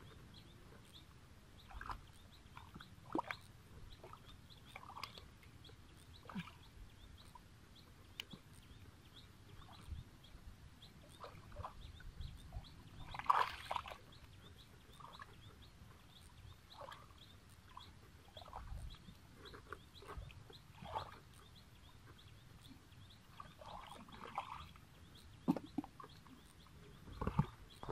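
Faint, scattered sloshes and splashes of hands groping through shallow muddy water, the loudest about 13 seconds in.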